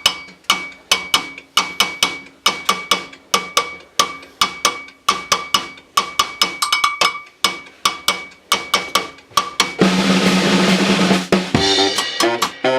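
Drums playing a steady beat on snare and bass drum, with a drum roll about ten seconds in. Pitched horn notes enter near the end as the brass band comes in.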